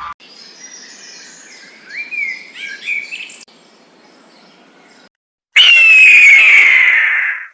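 Small birds chirping and calling for about five seconds, then, after a short break, a loud, harsh animal call lasting about two seconds, pitched high and sliding slightly down.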